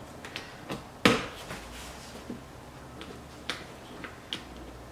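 Snap fasteners on a fabric engine-compartment cover being pressed into place: one sharp snap about a second in, then a few lighter clicks.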